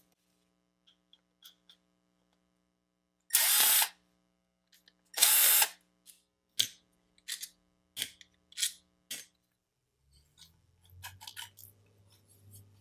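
Cordless electric screwdriver with a T10 security bit backing the case screws out of a DeWalt 20V Max battery pack: two runs of about half a second each, then a quick series of short bursts. Near the end come light clicks and plastic handling as the case top comes off.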